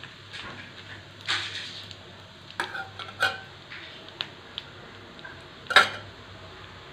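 A steel spoon clinking and scraping against a metal kadai a few times, the loudest clink near the end, over a faint sizzle of whole spices frying in hot mustard oil.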